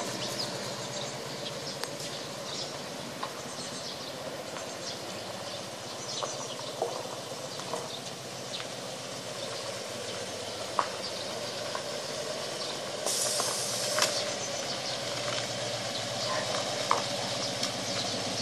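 Harley-Davidson Road King's V-twin engine running at low speed some way off, under a steady hiss, with small clicks. It grows a little louder near the end as the bike comes closer.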